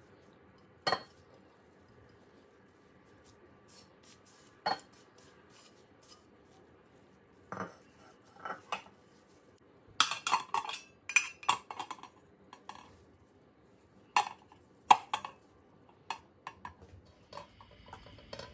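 Aluminium cooking pot and lid knocking and clinking: a few separate knocks, then a quick run of metallic clinks about ten seconds in as the lid is set on the pot, and a couple more clanks a few seconds later.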